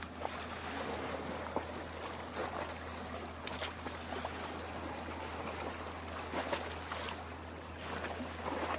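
Small lake waves lapping against the shore: a steady wash of water with little irregular splashes.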